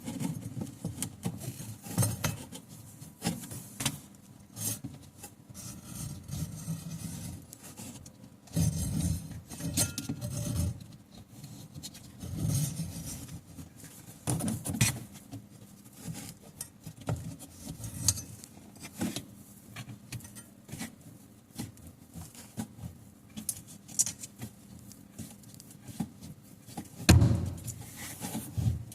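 Irregular clinks, rattles and knocks of tools and metal parts being handled during repair work on a semi-automatic washing machine, with a few duller thumps, the loudest near the end.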